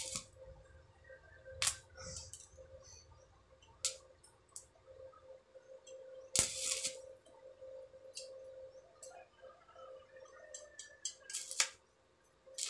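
Stick (arc) welding on steel angle bar in short bursts: the electrode's arc is struck and crackles for a fraction of a second at a time, about five times, with the longest spell a little after the middle, as tack welds are laid. A faint steady hum runs underneath.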